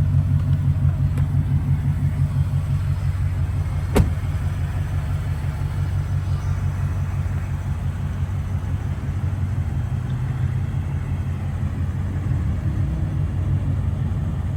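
Ford Raptor R's supercharged 5.2-litre V8 running steadily at a constant low pitch, with one sharp click about four seconds in.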